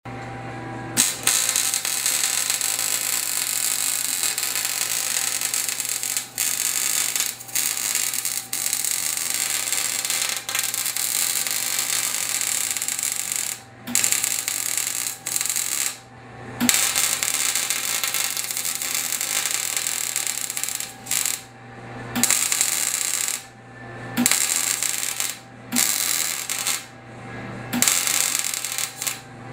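Electric arc welding: the arc's steady crackling hiss, starting about a second in and stopping and restarting several times in the second half as the arc is broken and struck again.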